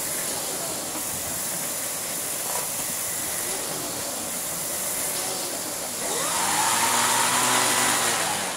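Miele canister vacuum cleaner running: a steady rush of air with a high whine. About six seconds in it grows louder and a tone rises in pitch.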